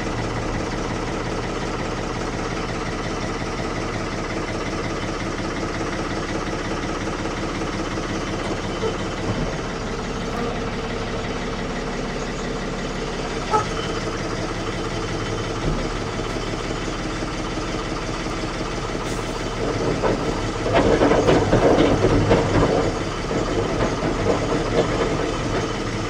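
Diesel engine of a 1975 Ford 550 tractor-loader-backhoe idling steadily, freshly cold-started at 36 °F. About twenty seconds in it grows louder and rougher for a few seconds while the loader hydraulics are worked.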